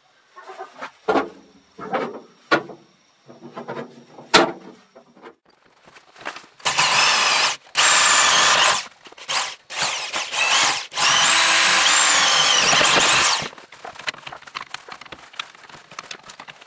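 Electric drill boring out the old wooden handle wedged in a rusty hammer head, running in several bursts with a wavering whine, the longest about two and a half seconds. Before it come a few short squeaks; after it, faint clicks and scraping as the loosened wood is picked out with a metal rod.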